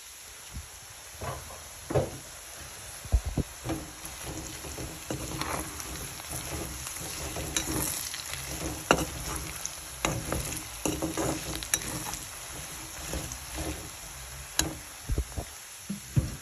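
Meat chunks frying in oil in a metal wok: a steady sizzle, broken by repeated scrapes and clinks as a slotted metal spatula stirs and turns the meat against the pan.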